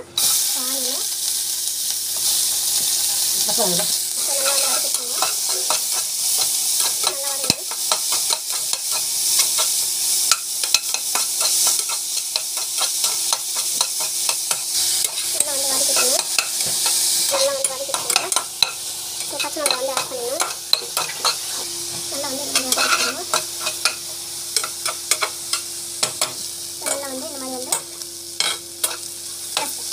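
Sliced onions hitting hot oil in a steel pot and frying: a loud sizzle starts suddenly as they go in, and a spoon stirs them with short scraping clicks against the pot. The sizzle eases a little after about seventeen seconds.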